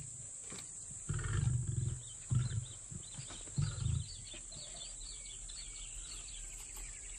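African lion giving three low growls in the first four seconds, the first about a second long, with birds chirping in the background.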